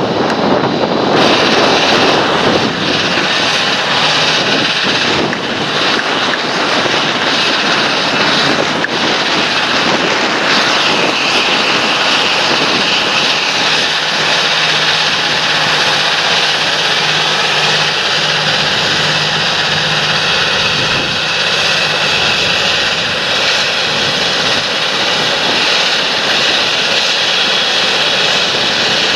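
Large John Deere tractor engine running steadily under load in the field, an even, loud drone.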